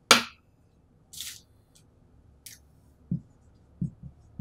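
Marker pen writing on a whiteboard: a short hiss at the start, two brief scratchy strokes, then a quick run of soft low taps from about three seconds in as the marker meets the board.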